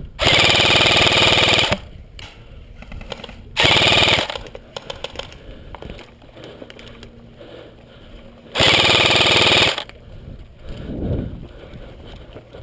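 Airsoft electric rifle (AEG) firing three full-auto bursts: a long one right at the start, a short one about four seconds in, and another about nine seconds in.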